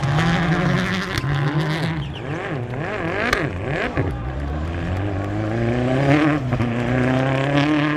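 Rally car engine revving hard, its pitch climbing and dropping again and again through gear changes and throttle lifts as the Ford Fiesta rally car slides through the gravel, with a sharp crack about three seconds in.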